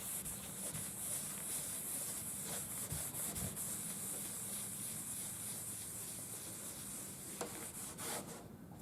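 Meguiar's oxidation remover being rubbed by hand into the dull paint of a tractor hood, a steady hiss of rubbing with quick, even back-and-forth strokes. It eases off about eight seconds in.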